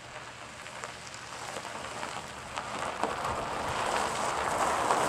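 Tyres of a 1990 Chevrolet Lumina crunching over loose gravel, a crackling noise with small stone clicks that grows steadily louder as the car comes closer.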